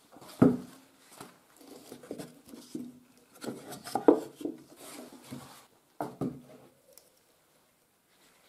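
Light, irregular knocks and taps of small wooden parts being handled and set on a workbench, going quiet about a second and a half before the end.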